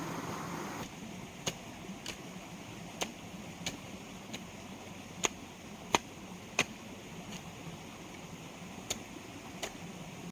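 A series of sharp, irregular taps or knocks, roughly one a second, over a low steady hiss.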